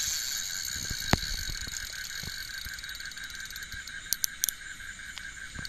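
Night chorus of frogs and insects: a fast, even pulsing call over a thin high hiss that slowly fades. A sharp click about a second in, and three short high ticks a little after 4 seconds.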